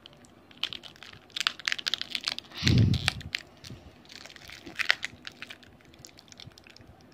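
Thin plastic packet crinkling and crackling as it is squeezed and pulled at, in two bursts of quick crackles, with a soft low thump about three seconds in.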